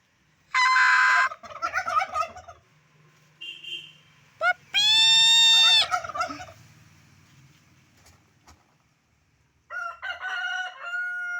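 Domestic turkey calling: rapid warbling gobbles, a long drawn-out call around the middle, and another run of calls near the end.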